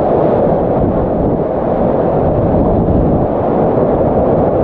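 Heavy whitewater rapids roaring steadily around a kayak, a deep, even rush of water.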